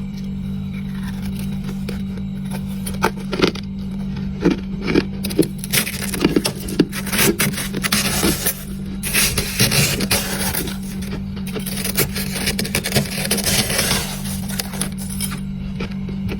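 Close-up crunching of freezer frost being chewed: separate crisp crunches begin a few seconds in, thicken into dense, gritty crunching through the middle, then thin out near the end, over a steady low hum.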